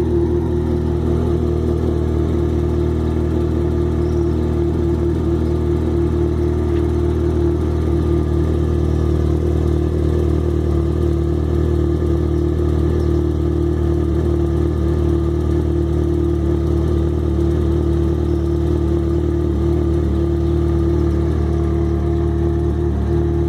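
Yamaha XJ6 motorcycle's 600 cc inline-four engine idling steadily. It carries the 'tec tec' ticking that the owner hears loudest from a cold start and much fainter once the engine is warm.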